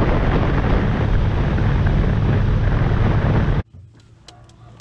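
Small fishing boat running across the water: a steady motor rumble with wind rushing over the microphone, cutting off suddenly a little over three seconds in. After it, much quieter, with a few light clicks.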